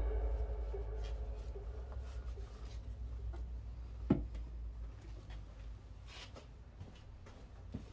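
Quiet handling noises: a cloth rag rubbing and a plastic motor-oil bottle being handled, with one sharper knock about four seconds in and a few faint clicks, over a low steady rumble.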